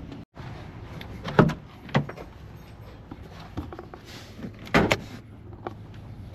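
A few sharp knocks and clunks, the loudest one about five seconds in, over a faint low hum.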